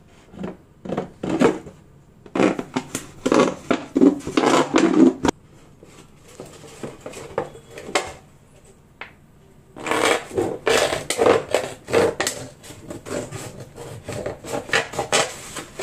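Plastic soft-drink bottle crackling and crinkling as a heated knife cuts along its side, in two runs of sharp crackles with a quieter pause of a few seconds in the middle.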